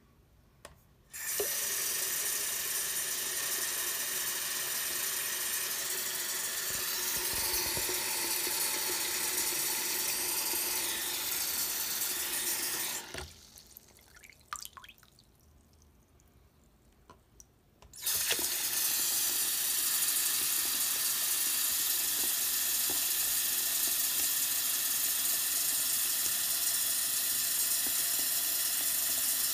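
Tap water running steadily into a sink basin and splashing over a wristwatch lying by the drain. The running starts about a second in, stops for about five seconds around the middle, with a few faint clicks, then runs again.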